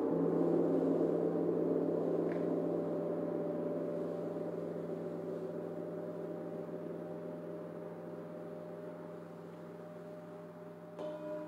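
Large hanging gongs struck with a mallet: a dense wash of many ringing tones that slowly fades. Another strike near the end brings in fresh tones.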